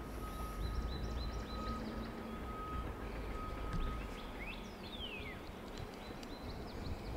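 Wild birds chirping: a quick series of short chirps about half a second to a second and a half in, then a long falling whistle about five seconds in, over a steady low rumble outdoors. A thin steady high tone runs underneath and stops about four seconds in.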